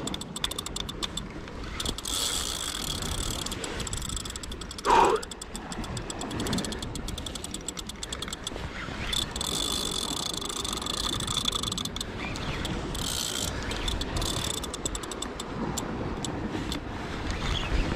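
Daiwa Saltiga 8000 spinning reel under load from a hard-running hooked false albacore, clicking rapidly and whirring in runs as the fish takes line against the drag and is reeled back. A brief louder sound comes about five seconds in.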